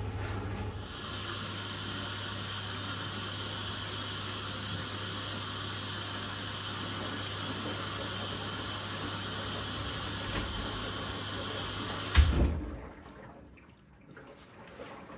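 Candy GrandO Vita Smart Fi+ washing machine taking in water: a steady rush of water over a low hum. About twelve seconds in the water cuts off suddenly with a thump, and quieter sounds follow.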